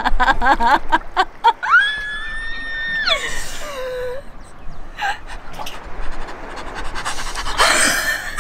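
A woman's voice: quick bursts of laughter, then a long high-pitched squeal that slides down into a lower whimper, followed by heavy breathing and a sharp gasp near the end, her reaction to easing into cold water.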